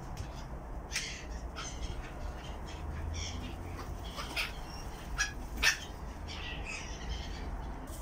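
Black-headed gulls calling: repeated harsh, short squawks from several birds, the loudest coming about five seconds in.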